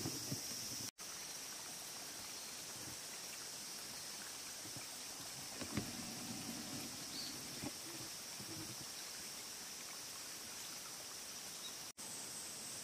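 Outdoor pond-side ambience: a steady high insect drone, with a few soft footsteps and rustles about halfway through.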